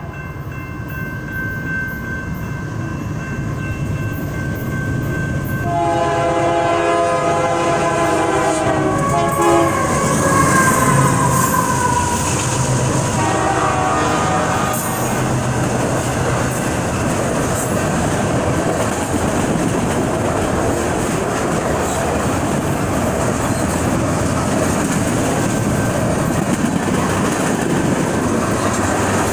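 Freight train sounding its horn in several blasts as it nears the crossing, the horn's pitch falling as the locomotive passes. Then the steady rumble and wheel clatter of a long string of freight cars (autoracks, lumber flatcars, tank cars) rolling past close by.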